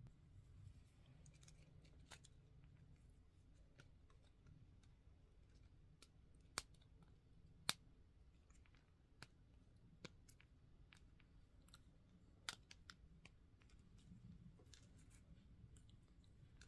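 Faint plastic clicks and taps from a miniature hard-plastic toy shopping basket being handled and fitted together in the fingers. A handful of sharper single clicks stand out in the middle.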